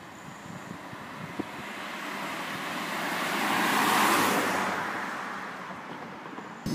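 A car passing by on a nearby road: tyre and engine noise swells to its loudest about four seconds in and then fades. Near the end a different, louder sound cuts in suddenly.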